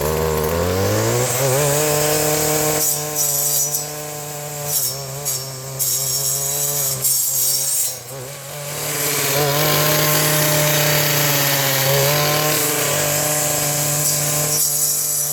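Stihl brush cutter with a metal cutting blade running hard while clearing saplings and brush. Its engine speed climbs over the first second or so, sags about halfway through, then climbs back and holds.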